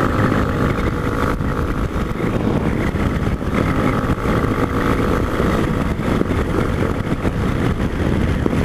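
Yamaha Ténéré motorcycle engine running at a steady cruise while riding, with road and wind rumble on a microphone mounted low by the front fork.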